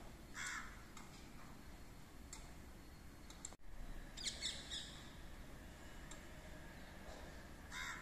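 Crow cawing, faint: a single caw about half a second in, a quick run of harsher calls around four seconds in, and another caw at the end.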